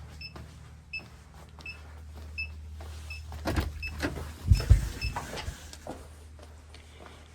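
Circuit breaker finder receiver giving a short high electronic beep about every 0.7 seconds over a steady low hum. A few heavy thumps and knocks come about halfway through.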